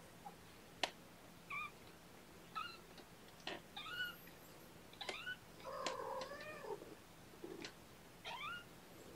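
Newborn kittens, about two and a half weeks old, mewing: about seven short, thin rising-and-falling mews, with one longer, lower mew a little past the middle. A few sharp clicks come between the mews.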